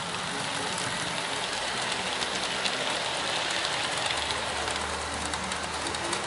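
Model train boxcars rolling past on the layout track: a steady rattling clatter of wheels on rail with many quick ticks. A low hum comes in about four seconds in.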